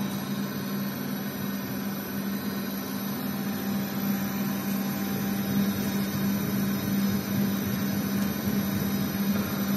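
HKI 4025 CNC milling machine running with a steady hum and hiss as its table is jogged along the Y axis, bringing the end mill up to the workpiece edge to find it. The sound grows slightly louder toward the end.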